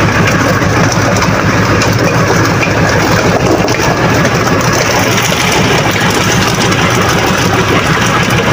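An engine on board a fishing boat running steadily and loudly at a constant speed, its low drone unchanging throughout.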